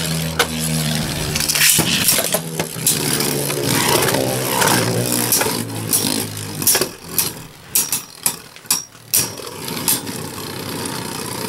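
Two Beyblade spinning tops whirring against the floor of a plastic stadium, with repeated sharp clacks as they strike each other, most in a quick run about seven to nine seconds in.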